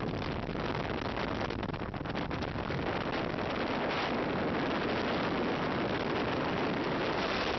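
Small motorboat running at speed over open water: a steady rush of wind on the microphone mixed with engine and water noise.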